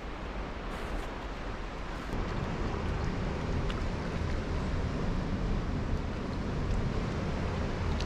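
Steady rush of turbulent river water pouring out below a dam, with wind rumbling on the microphone.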